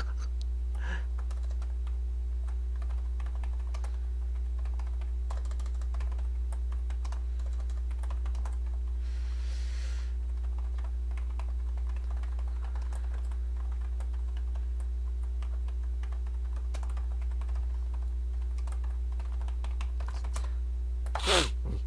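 Typing on a computer keyboard: irregular runs of soft keystrokes while a Facebook post is being written, over a steady low electrical hum.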